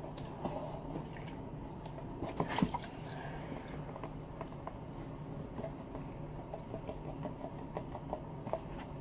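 Water sloshing and dribbling as a plastic gold pan is swirled and tipped in a tub of muddy water, washing paydirt down toward its black-sand concentrate. Small drips and splashes throughout, with a louder bit of splashing about two and a half seconds in.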